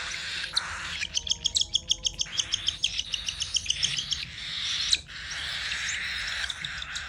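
Cockatiels calling during a squabble over food: a quick run of evenly repeated high chirps, about eight a second, starting about a second in and lasting about three seconds, with harsh, raspy screeching before and after it.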